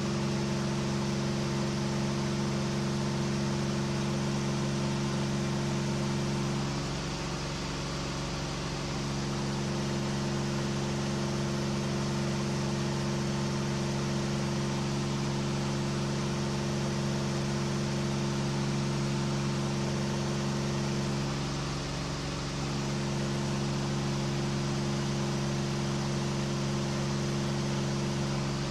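A KR2 homebuilt light aircraft's engine running steadily at climb power, heard from inside the cockpit over a constant rush of air noise; the drone weakens briefly twice.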